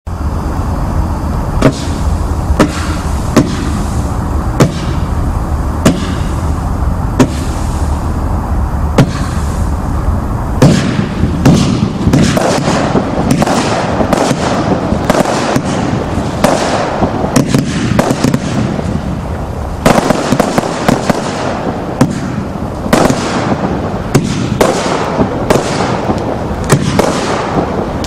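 Absolute Fireworks 'Festival' 81-shot firework cake firing. For the first ten seconds it gives sharp shots about once a second. From about ten seconds in it speeds up into dense, overlapping launches and bursts with crackle.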